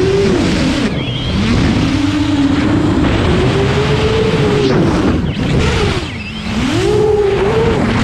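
Brushless motors and propellers of a 12S X-Class racing drone with X-Nova 350KV motors, whining loudly in flight. The pitch rises and falls with the throttle: a long climb over a few seconds, a dip with a drop in loudness about six seconds in, then another rise.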